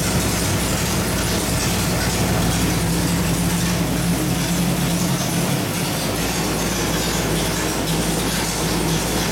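Small-block Chevrolet 427 V8 running steadily on an engine dyno: a loud, even drone that holds one speed, with no revving.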